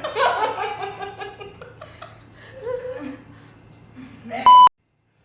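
Faint chatter and laughter fading out, then a short, loud electronic beep about four and a half seconds in that cuts off abruptly.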